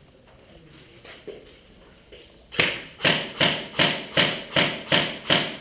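Airsoft gun firing about eight single shots in a steady rhythm, roughly two and a half a second, each a sharp crack with a short echo. Faint shuffling and light knocks come before the shots.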